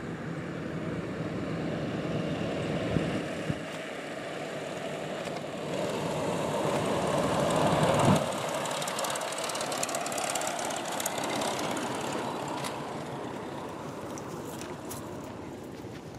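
Twin-engine Piper Aztec running as it rolls along the runway. It grows louder as it comes close, drops in pitch as it passes about eight seconds in, then fades as it moves away.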